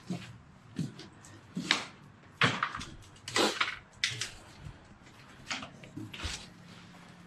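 A series of irregular knocks and bangs, about nine, the loudest about two and a half to three and a half seconds in.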